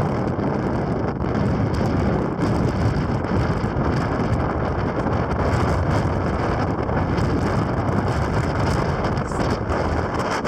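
Very strong wind blowing over the microphone: a continuous heavy rush of noise, strongest in the low end, with no let-up.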